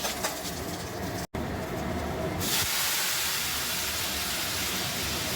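Boiled moong dal poured into a kadai of hot oil tempered with fried dry chillies, bay leaf, panch phoron and ginger, sizzling. The sound drops out briefly a little over a second in, and from about two seconds in a loud, steady hiss takes over.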